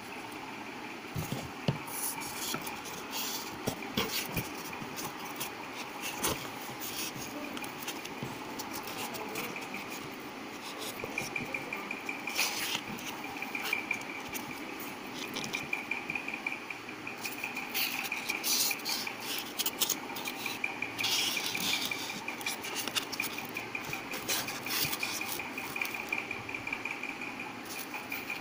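Hands working inside a cardboard box, fitting a strip of polystyrene foam against its walls: irregular rubbing, scraping and light knocks on the cardboard. A thin high tone runs in the background through much of the second half.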